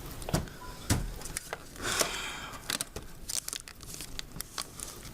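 Handling noise from hands-on installation work: a string of sharp knocks and clicks, with a short tearing, crinkling rush about two seconds in.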